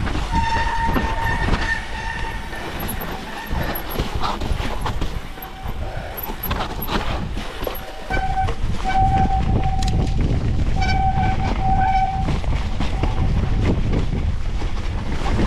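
Mountain bike riding down a wet, rough trail: wind on the microphone, tyre rumble and frame rattles, with disc brakes squealing in steady high tones near the start and again in several short bouts about halfway through.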